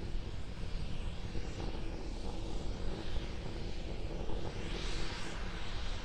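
Steady low rumble of the SpaceX SN10 Starship prototype's Raptor rocket engines climbing far overhead, with a hiss that swells about five seconds in.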